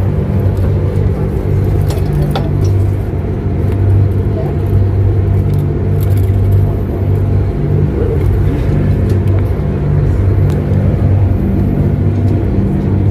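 Ferry engine droning steadily inside the passenger cabin, a low hum that eases a little in the middle and swells again near the end.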